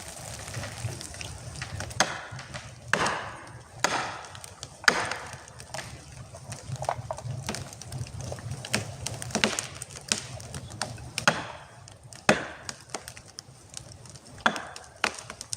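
Repeated chopping blows striking wood, mostly about a second apart with short pauses between runs, each a sharp crack with a brief ring.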